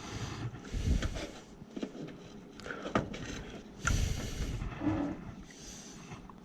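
Handling noise from hands-on work on the wiring: scattered clicks, light knocks and rustling, with a sharp click about three seconds in and a louder rustle about a second later.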